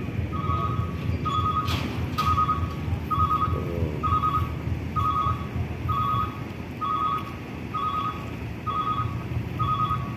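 A truck's reversing alarm beeps about once a second with a warbling tone, over a low engine rumble. Two short knocks sound about two seconds in.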